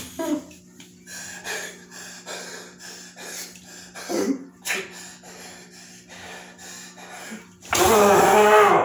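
A boy breathing hard in short, uneven gasps, then letting out a loud yell for about a second near the end.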